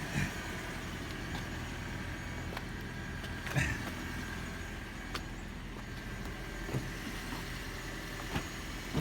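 Steady hum of a running vehicle, with a few faint short knocks and clicks.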